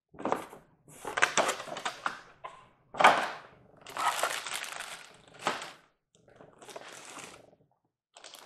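Clear plastic wrap crinkling and cardboard boxes scraping and knocking against each other as they are handled and lifted out of a shipping box, in a string of separate bursts with a sharp knock about three seconds in.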